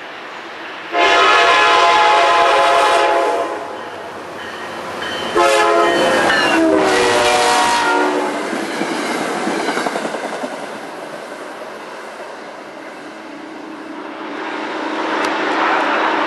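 Passing commuter train's air horn sounding two long blasts as it approaches, the second dropping in pitch as the train goes by. Then the train rolls past with a steady rumble and clatter of wheels on the rails.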